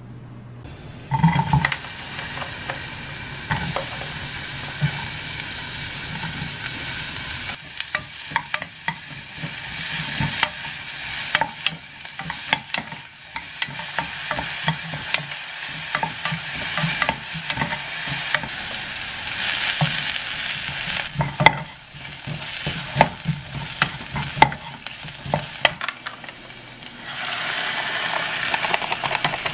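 Sliced onion and green onion sizzling as they fry in a coated pot, stirred with a wooden spatula that knocks and scrapes against the pan many times. The sizzle starts about a second in and grows louder and fuller near the end.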